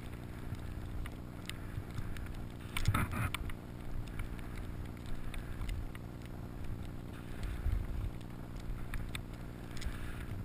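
Steady rumble of wind and movement buffeting a body-worn camera while gliding through deep powder snow, with a brief louder bump about three seconds in.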